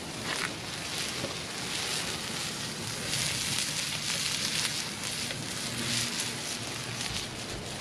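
Charcoal fire with freshly added apple and cherry wood chunks burning high in an open grill firebox: a steady crackling hiss with scattered pops.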